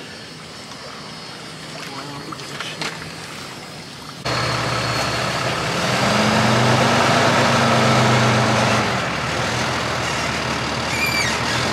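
After about four quiet seconds, a Ram tow truck's engine runs loud and close. Its note rises a couple of seconds later, holds for about three seconds, then settles back. A brief high chirp comes near the end.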